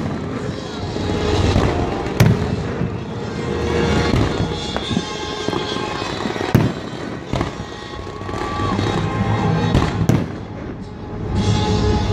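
Fireworks display: aerial shells bursting in a continuous run of bangs, with sharp loud ones about two, six and a half and ten seconds in.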